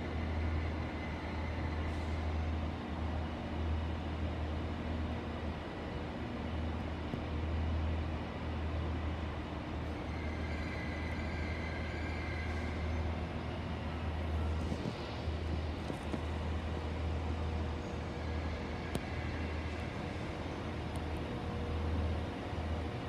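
Trains running in a station trainshed: a steady low rumble, with a faint high whine that grows louder about ten to thirteen seconds in.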